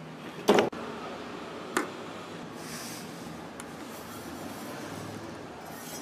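A sharp knock about half a second in, the loudest sound, and a lighter knock near two seconds, as kitchen things are handled. Then a brief soft hiss and faint patter of poppy seeds poured from a steel bowl onto crumbly ground filling.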